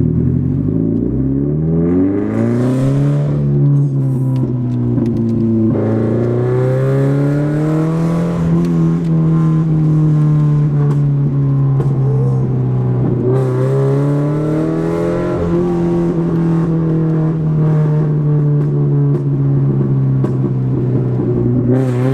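Subaru BRZ's 2.0-litre flat-four exhaust, made loud by a catless front pipe that leaves it basically straight-piped, while the car is driven. The engine note climbs in pitch over the first few seconds as the car pulls away, then holds a steady drone that rises and falls gently with the throttle.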